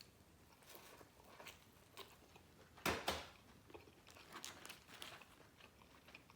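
A person chewing and biting food close to the microphone: soft wet smacks and clicks, with one louder crunch about three seconds in.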